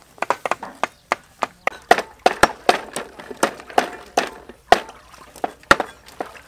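Knives chopping on wood: sharp, irregular knocks, about three a second.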